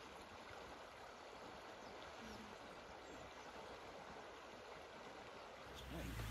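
Faint, steady rush of flowing river water. Near the end it changes abruptly to a louder low rumble.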